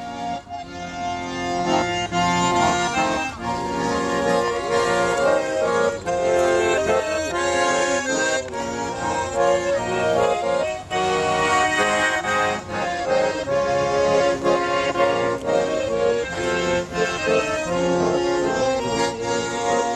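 A small hand-held accordion playing a tune without a break, with melody and chords.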